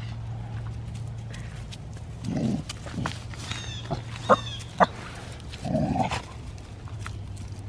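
Dogs playing rough together: two bouts of low growling, a few seconds apart, with two short sharp yips between them, which are the loudest sounds. A steady low hum runs underneath.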